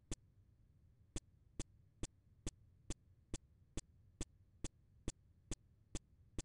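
A single sharp click, then after about a second a steady run of evenly spaced sharp clicks, a little over two a second, over a faint low hum.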